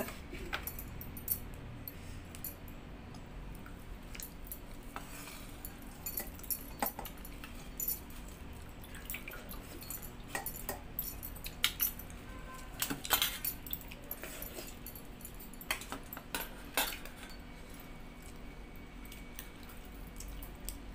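Irregular light clinks and jangles of bangles and a stainless steel bowl as watered rice is mixed and eaten by hand, with a few louder clinks around the middle.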